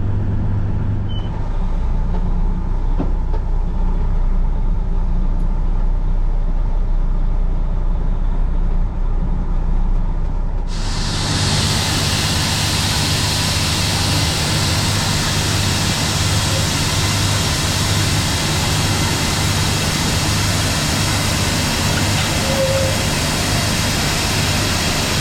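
Truck engine idling steadily. About eleven seconds in, a loud, steady rushing noise starts suddenly on top of a running engine and holds.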